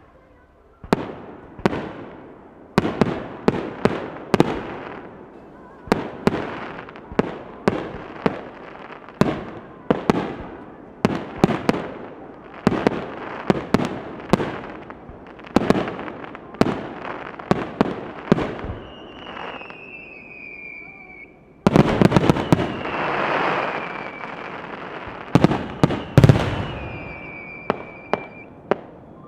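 Fireworks display: a rapid barrage of shell bursts, two to four bangs a second, each trailing off. About two-thirds of the way through a dense stretch of crackling takes over, and twice a high falling whistle glides down.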